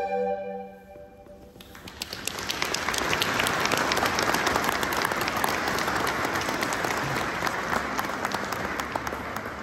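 A flute ensemble's held closing chord dies away about a second in, then the audience applauds; the applause swells, holds, and fades out near the end.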